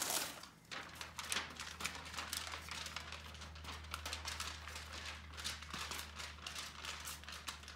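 Sheets of paper rustling and crackling as a toddler shakes them in his hands: a quick, irregular run of papery crackles.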